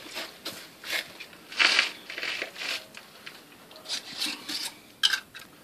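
A can of PVC primer being handled and opened: a string of short scraping and rubbing sounds, with a sharp click about five seconds in.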